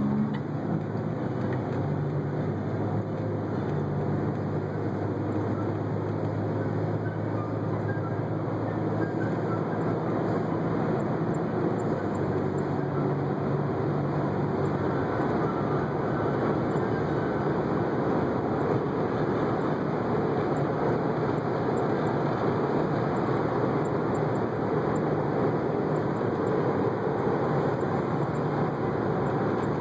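Steady noise of a moving vehicle, with a low steady hum that stops about halfway through.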